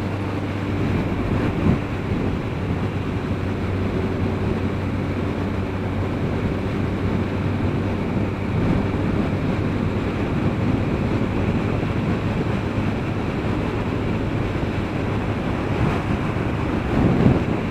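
Motorcycle at steady cruising speed: wind rushing over the microphone with the engine's even low hum underneath.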